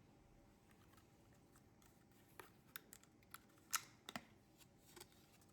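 About seven faint, sharp clicks and light taps of small plastic and metal printer parts being handled, the strongest a little past halfway; otherwise near silence.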